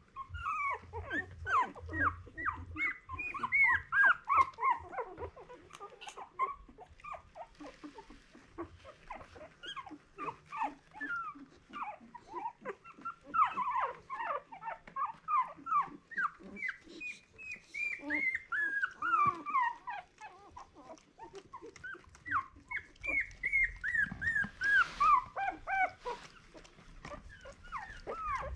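A litter of two-week-old miniature Australian cattle dog puppies whimpering and squeaking, a constant overlapping stream of short high cries, most falling in pitch.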